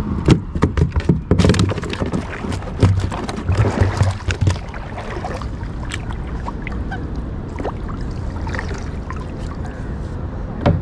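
Hollow knocks and clatter on a plastic sit-on-top kayak as the paddle and net gear are handled, dense for the first four seconds or so, with light water splashing; after that only a steady low rush.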